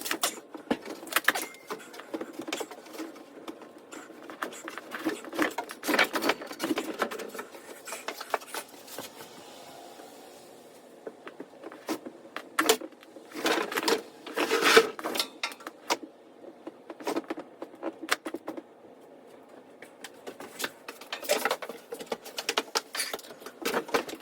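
Electrical cable being pulled through a small hole and handled: irregular rustling and scraping with scattered clicks and knocks, in a few louder spells.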